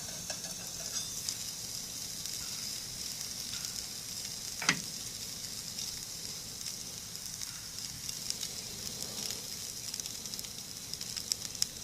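Hamburger patty sizzling in a small lidded skillet on a propane camp stove: a steady hiss with scattered crackles. A single sharp click about five seconds in.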